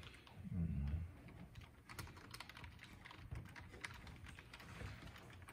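Typing on a computer keyboard: a run of quick key clicks through the second half, with a brief low thump about half a second in.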